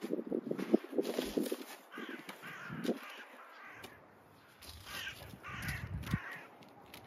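Crows cawing several times in harsh calls, after rustling and knocking in the first second and a half as the fabric cover and boards over a rose bed are handled.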